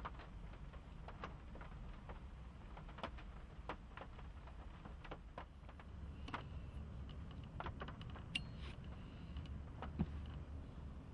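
Faint, scattered small clicks and ticks over a low steady hum, with one sharper click about ten seconds in.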